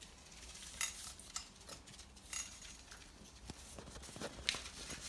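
Faint scattered rustling and soft taps of hands rubbing dry spice rub into raw pork ribs.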